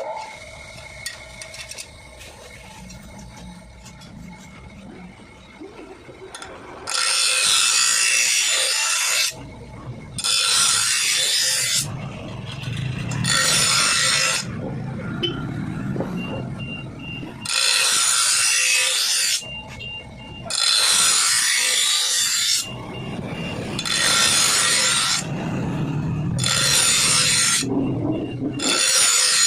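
Grass cutter's steel blade being filed by hand: long rasping strokes of metal on metal, about eight of them, each lasting one and a half to two seconds with short pauses between. They begin about seven seconds in, after a stretch of faint handling and rubbing.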